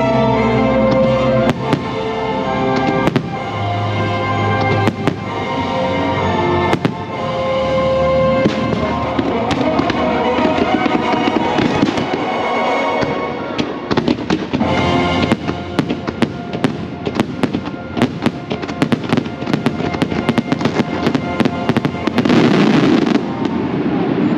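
Fireworks show with its orchestral soundtrack. The music carries the first several seconds, then firework bangs and crackles come thicker and faster. They are densest about two seconds before the end.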